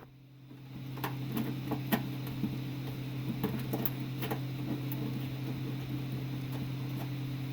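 A steady low electrical hum, with scattered faint clicks and taps of hands handling a newly fitted push-button range hood switch and its mounting nut.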